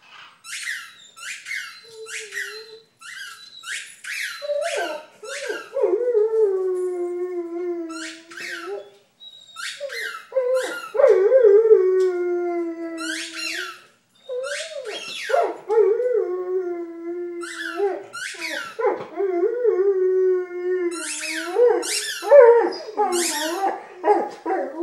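Vizsla squeaking a large squeaky tennis ball in its mouth, about two squeaks a second, then howling. The howls are long, drawn out over several seconds each; each starts higher and slides down to a steady note. More squeaks come between the howls.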